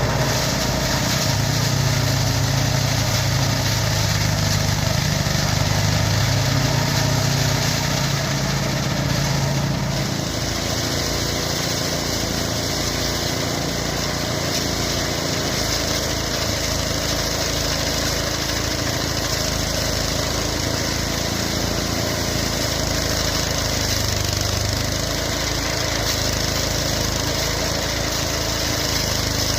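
Small engine of a mini rice threshing machine running steadily, its low hum changing about ten seconds in.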